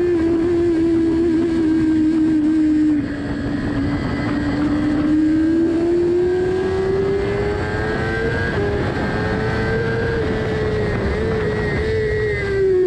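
Sport motorcycle engine at high revs, heard from on board, its pitch climbing slowly as the bike accelerates along a straight, then dropping near the end as it slows for a corner. A constant rush of wind runs under it.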